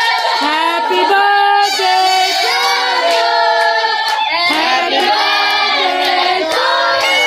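A group of voices singing loudly together, with a few hand claps.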